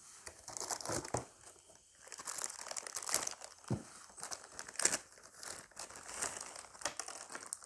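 Packaging crinkling and rustling in irregular crackles as the contents of a nebulizer box are handled and unpacked.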